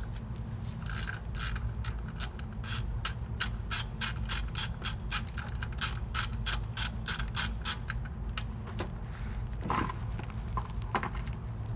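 Hand ratchet with a 15mm socket clicking in a quick, even run, about four clicks a second for some seven seconds, as the oil drain plug is backed out, followed by a few single knocks near the end.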